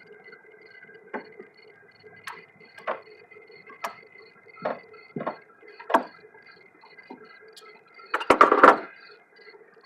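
Irregular clicks and knocks of a tool working a tight radiator hose clamp, with a louder clatter a little after eight seconds in, over a faint steady hum.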